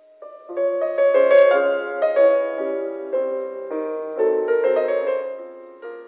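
Slow piano music, held notes and chords overlapping one another, swelling in the first two seconds and fading away near the end.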